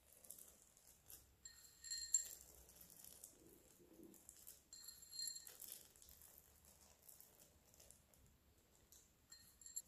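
Faint patter of chopped hazelnuts being scattered by hand onto chocolate-spread dough, with a few brief light clinks, around two and five seconds in, of the small glass bowl holding them.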